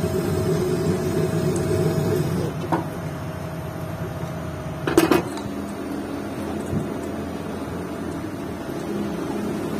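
Steady workshop machine hum with a faint whine, broken by a light knock about three seconds in and a sharp metal clank about five seconds in as a finned motorcycle cylinder barrel is worked onto a steel mandrel on the lathe.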